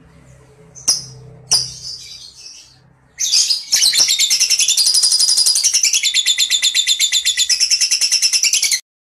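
Lovebird calling: a couple of short, sharp chirps, then a long, fast chattering trill ('ngekek') of about ten notes a second lasting some five seconds, which cuts off abruptly.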